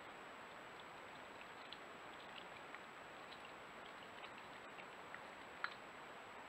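European badger feeding at a log: faint scattered clicks and small crunches of it chewing and licking, one louder click near the end, over a steady hiss and a faint high whine.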